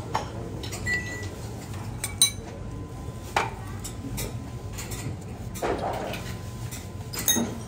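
Dishes and metal serving utensils clinking at a buffet counter: about five separate clinks and knocks over a steady low hum.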